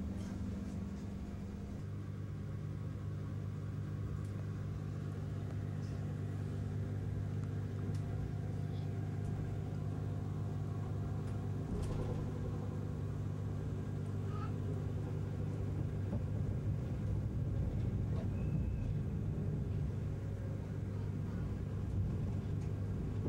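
Inside a 485-series electric express train car pulling out of the station: a steady low electrical hum with a rumble that grows slightly louder as the train gathers speed.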